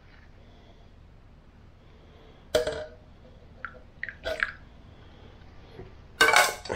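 A small metal camping pot handled and tipped to pour hot water into a metal cup: a sharp metal clank about two and a half seconds in, a short pour with light clinks about four seconds in, and a louder clatter near the end as the pot is set back down on the butane camp stove.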